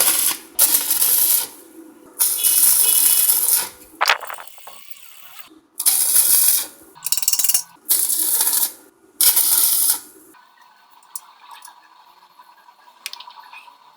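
Electric arc welder laying short welds: five bursts of crackling and sizzling, each about a second long, then it stops about ten seconds in, leaving a few faint ticks.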